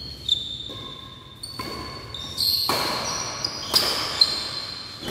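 Badminton rally: a series of sharp racket hits on the shuttlecock, echoing in a large hall, with thin high-pitched squeaks between them.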